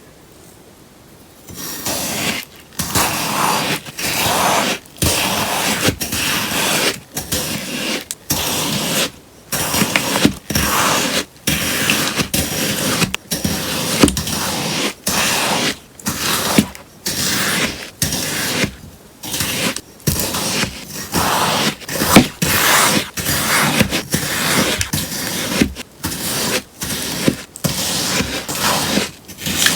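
Melamine sponge being cut, a crisp shearing crunch with each stroke, repeated about once a second.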